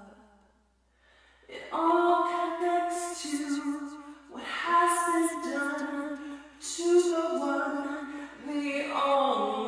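A woman singing unaccompanied in long held notes, starting after about a second of near silence.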